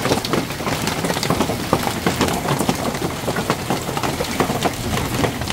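Heavy hail shower: hailstones hitting paving slabs and garden plants in a dense, even stream of small impacts.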